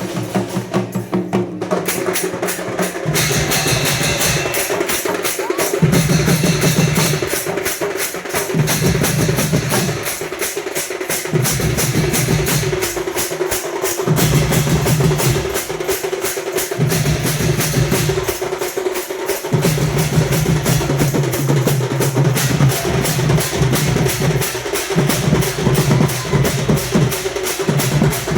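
Ghanta badya percussion ensemble playing: metal gongs and drums struck in a fast, steady beat, over a sustained low tone with deeper notes that come and go.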